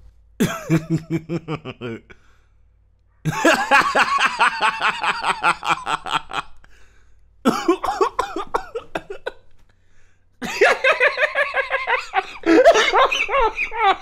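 A man laughing in four separate bouts with short pauses between, each a quick run of pulsed laughs.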